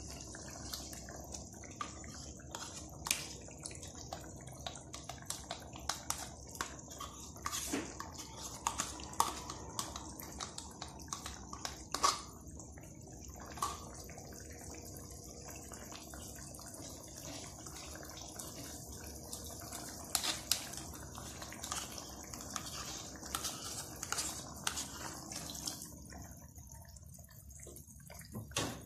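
Chicken masala curry simmering in a wok, with irregular small bubbling pops over a steady hiss.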